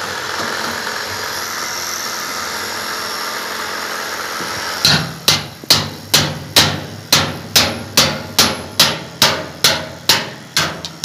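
Hand hammer striking a steel strap on a galvanized sheet-metal duct in a steady rhythm of about two sharp metallic blows a second, starting about five seconds in. Before the hammering there is a steady rushing noise.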